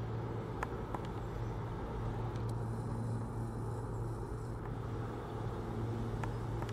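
Steady low hum of standing Tobu 8000 series electric trains, with a couple of faint clicks about a second in.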